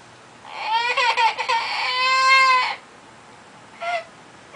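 Parrot mimicking a crying baby: a wavering, sobbing wail that settles into one long held note, then a short second cry near the end.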